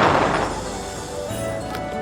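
Music: a loud crash dies away in the first half second, then held notes come in.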